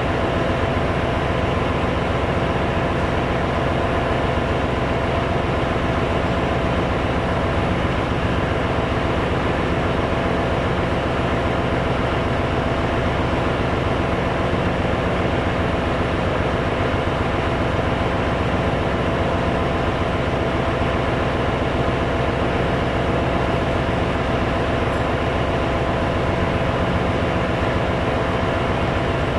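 Ship's engine-room machinery running with a loud, steady drone that carries a held hum.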